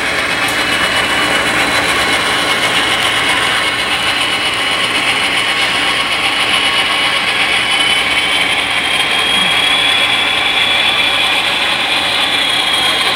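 HO scale model diesel locomotives running past close by, a steady mechanical running sound with a thin high-pitched whine that climbs a little past the middle.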